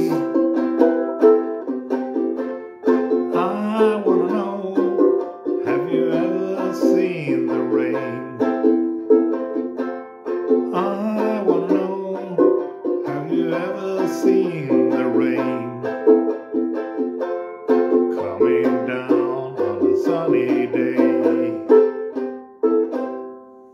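Ukulele strumming with a harmonica in a neck rack playing held notes over it, instrumental with no singing. The music fades out near the end.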